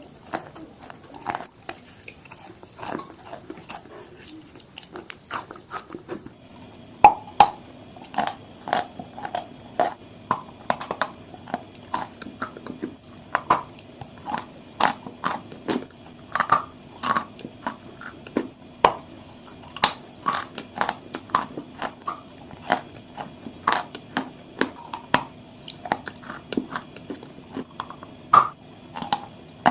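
A person biting and chewing chalk close to the microphone: a dense, irregular run of sharp crunches, louder from about seven seconds in.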